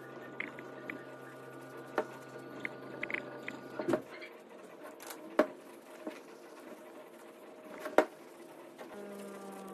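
Scratchy rubbing of an abrasive pad over a leather shoe upper, with three sharp knocks, the loudest near the end, over soft background music with held chords.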